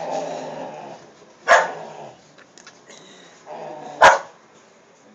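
A dog barking sharply twice, about a second and a half in and again near the end, with lower growling sounds in between.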